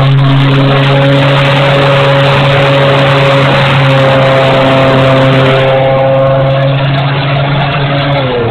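Electric motor and propeller of a foam RC Hawker Tempest at high throttle, heard from the onboard camera: a steady, loud whine over heavy air rush, easing slightly in pitch right at the end.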